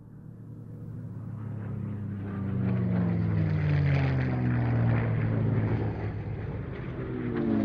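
An engine fading in from silence and growing louder over the first few seconds, then running steadily loud, its pitch sliding down in places.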